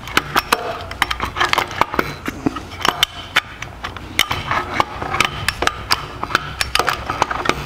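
Distributor being wiggled and turned in a small-block Chevy's intake manifold, its metal housing and gear clicking and clinking irregularly, several times a second, as it is worked down to engage the oil pump drive.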